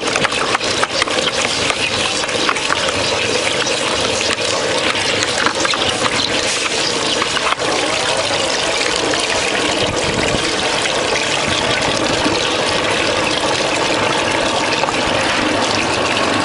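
Rebar threading machine running as its die head cuts a thread onto a ribbed steel reinforcing bar, with cutting coolant splashing and pouring steadily over the die. Sharp ticks crackle through the first couple of seconds before the sound settles to an even hiss.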